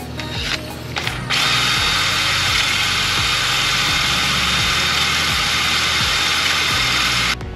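Cordless drill spinning an abrasive disc against the corroded wheel hub face, grinding the rust off. It pauses briefly at the start, then runs steadily for about six seconds and stops just before the end.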